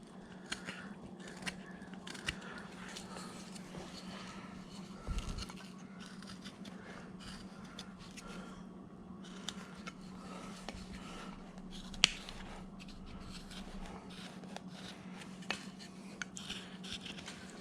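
Small upsweep skew carving knife paring wood in many short, faint scraping cuts, with one sharp click about twelve seconds in. A steady low hum sits underneath.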